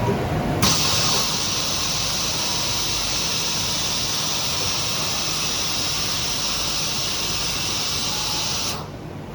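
Hiss of compressed air blowing in an automated circuit-board cleaning machine, switching on suddenly about half a second in and cutting off near the end, with a faint high whistle in it, over the low running noise of the machine.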